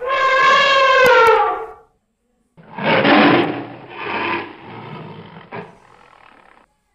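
Animal sound effects: an elephant's trumpet call, its pitch dropping at the end. After a short gap come two loud tiger roars, then a quieter growl that fades out.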